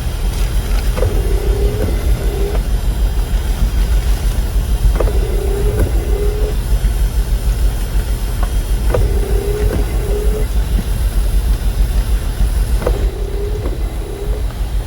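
Windshield wipers on intermittent, sweeping four times at about four-second intervals: each cycle starts with a click and the blades squeak across the glass on the way out and back. A heavy, steady low rumble of wind buffeting the parked Jeep runs underneath.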